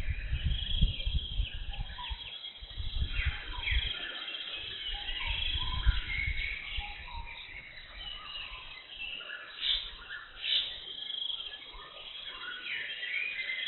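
Jungle birds chirping and trilling with many short, overlapping calls. Low rumbling noise comes and goes through the first half, and there are two brief sharp sounds a little after the middle.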